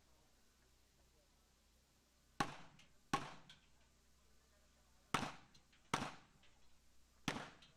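Five handgun shots, roughly in two pairs about three-quarters of a second apart, then a single shot near the end, each with a short echo.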